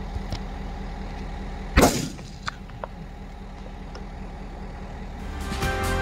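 A single loud rifle shot about two seconds in, over the steady low hum of an idling vehicle engine. Music fades in near the end.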